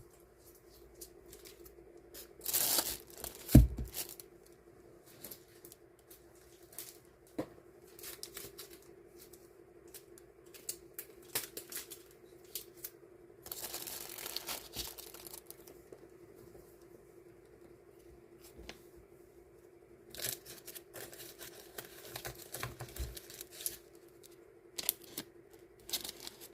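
Die-cut stickers and their packaging being handled and sorted: intermittent rustling and crinkling with short tearing or peeling sounds and one knock a few seconds in, over a steady low hum.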